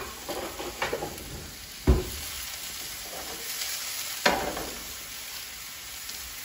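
Sliced mushrooms sizzling in a hot frying pan with a little fat, stirred, with a few sharp knocks of a utensil against the pan, the loudest about two seconds in.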